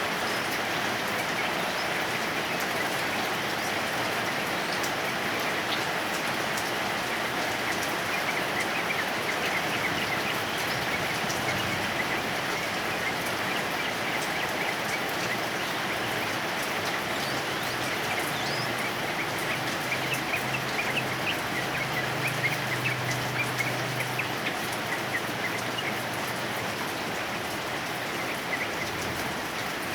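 Heavy rain falling steadily, with short chirping notes of a yellow-vented bulbul coming through the rain, more of them in the second half.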